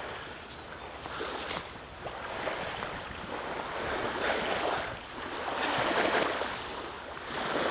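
Small waves washing onto a sandy shore, the surf swelling and fading every second or two, with wind over it.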